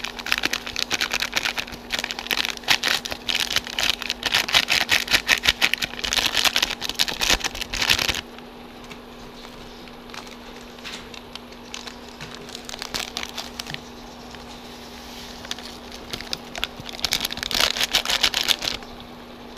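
Foil sachets of instant rice porridge crinkling and rustling as the powder is shaken out into a wok of simmering broth: a long spell that stops abruptly about eight seconds in, and a shorter one near the end. In between, only faint scattered crackle from the broth over a steady low hum.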